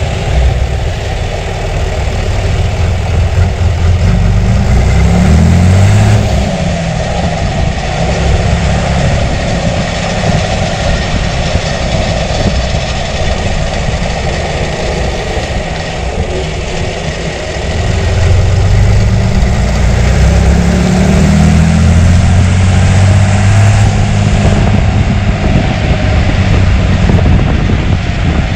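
John Deere 3350 tractor's 6.6-litre six-cylinder diesel engine running, its revs rising briefly about four seconds in, dropping back, then rising again from about eighteen seconds and holding higher.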